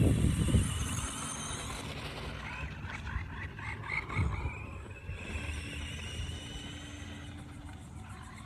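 Foxx S911 1/12-scale RC car's electric motor and gears whining as it speeds up and slows down, the pitch rising and falling several times. A louder low rumble comes in the first second.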